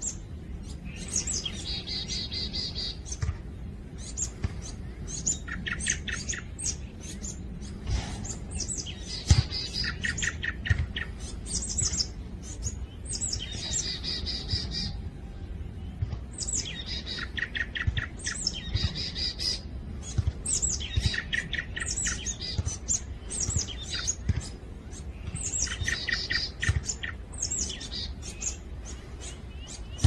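Grey-backed thrush and marsh tit singing. A song phrase comes about every four seconds, each a couple of seconds long and ending in a fast run of repeated high notes.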